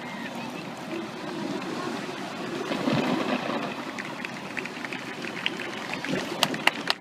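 Crowd of spectators as a steady murmur of many voices, with sharp claps starting near the end as applause begins.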